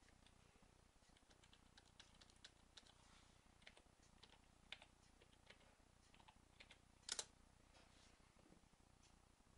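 Faint, irregular keystrokes on a computer keyboard as a command is typed at a Linux console, with a louder double click about seven seconds in.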